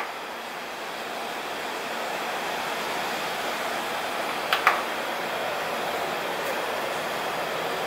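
Steady hiss from the karaoke amplifier and speakers with no music coming through, and a short click with a brief high squeal about four and a half seconds in as an equalizer button is pressed.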